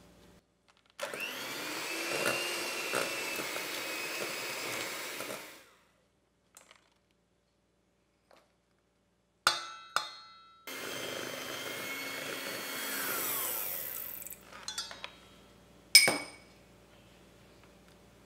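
Electric hand mixer beating butter and icing sugar in a stainless steel bowl, running in two spells of a few seconds each with a faint motor whine. Sharp clicks and taps come between the spells, and a loud sharp knock follows shortly after the second.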